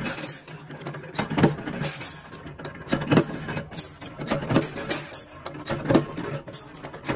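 Workshop work sounds: irregular sharp clicks and knocks over a steady low hum.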